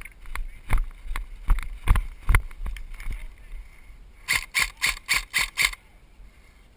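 Running footsteps thudding on a forest floor for the first few seconds, then six quick shots about a quarter second apart from an electric airsoft rifle, a BOLT B4A1 with recoil system.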